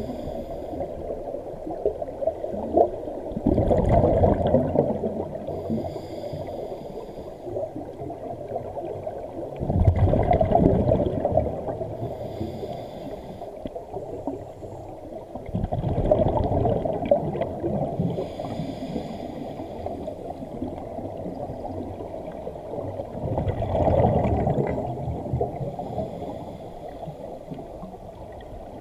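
Scuba diver breathing through a regulator underwater: a rush of exhaled bubbles about every six to seven seconds, four times, with a fainter hiss of inhalation between them.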